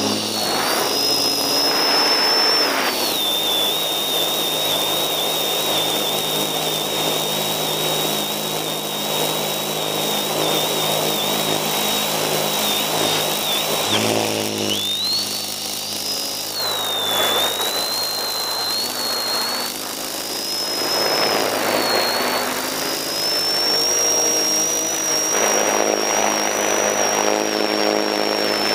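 Single-rotor FPV drone's electric motor and propeller whining, the pitch dropping and rising as the throttle changes through a dive, over a steady rush of air on the onboard camera's microphone.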